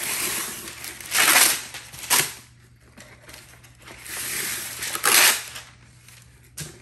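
Wax paper pulled off its roll and torn off against the box's cutting edge, twice, with a crinkling rustle of the paper and a sharp rip at the end of each pull.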